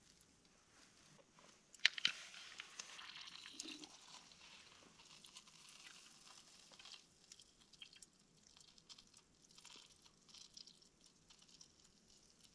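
A small pot handled at glowing embers: two sharp clicks about two seconds in, then a few seconds of crackling hiss. Scattered faint crackles follow as sauce is poured from the pot over sliced meat.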